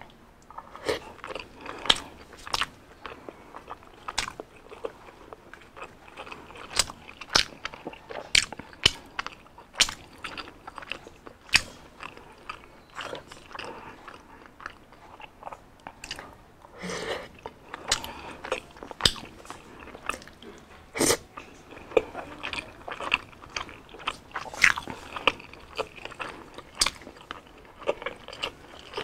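Close-miked eating of fried street food: biting and chewing with many sharp, crisp crunches at irregular intervals.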